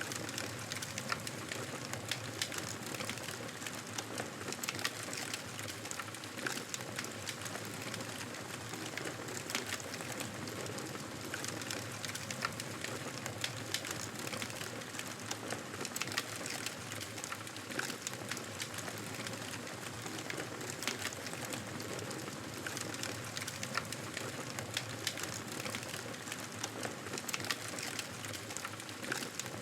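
Campfire burning steadily, with irregular sharp crackles and pops over a soft hiss of flames.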